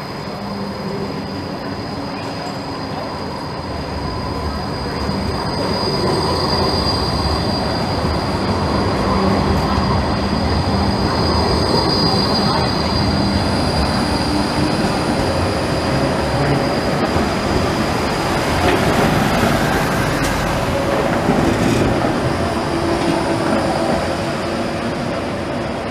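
Trams running past on curved street track: a steady rumble of the running gear, loudest through the middle, with the steel wheels squealing in a high, steady tone on the curve, and a higher squeal joining about halfway through.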